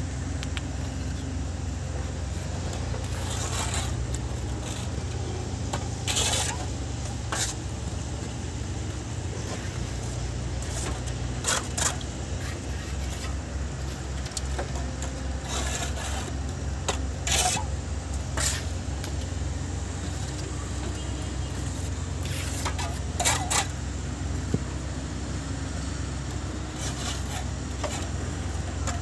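Steel mason's trowel clinking and scraping against concrete blocks and mortar as a block wall is laid, a sharp clink every few seconds, over a steady low hum.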